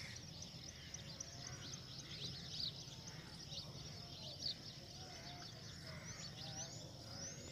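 Faint chorus of small birds chirping, many short quick calls overlapping throughout, over a low steady background hum.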